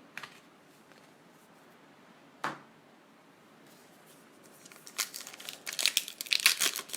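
A trading card pack's wrapper being torn open and crinkled in the hands, a dense crackling that starts about five seconds in, after a single soft knock about halfway through.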